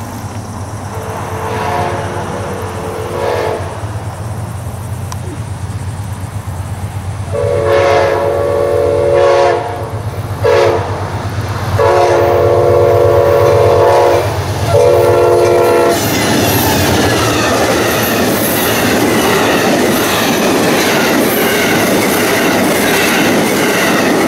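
A diesel locomotive's horn sounds a chord of several notes in four blasts: long, long, short, long, the grade-crossing signal. Under the horn runs the steady low drone of the engine. Then the train passes close with a loud rushing clatter of wheels on rail.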